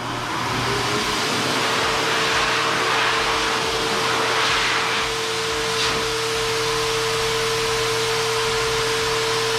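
Adam's Air Cannon car dryer switched on at its minimum speed: its blower motor spins up with a rising whine over the first second, then runs steadily with a loud rush of air.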